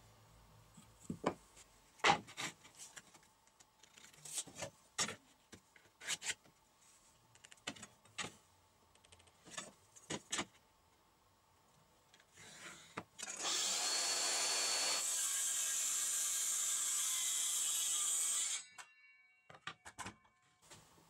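Wooden pieces knocking and clattering on a wooden workbench as they are handled, then a power tool runs loudly and steadily for about five seconds and cuts off suddenly.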